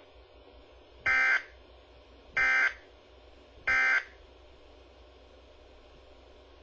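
Three short, identical bursts of NOAA/Environment Canada SAME digital data tones, a warbling two-tone modem sound, about 1.3 seconds apart, from a weather radio broadcast. Their shortness and their place after the spoken test message fit the end-of-message code that closes an EAS alert. A faint hum sits between the bursts.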